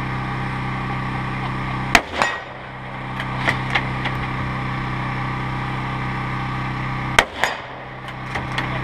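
Two precision rifle shots about five seconds apart, each followed about a quarter second later by a second, smaller bang, then a few light clicks.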